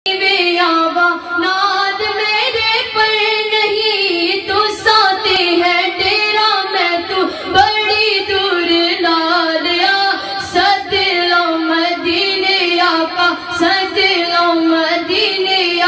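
A high voice singing a naat (Urdu devotional song to the Prophet) in long, wavering held notes.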